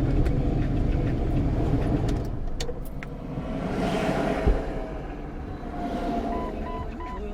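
Motor vehicle engine running in traffic, with another vehicle swelling past about halfway through and a short thump. Near the end a rapid, even high beeping starts, about three beeps a second.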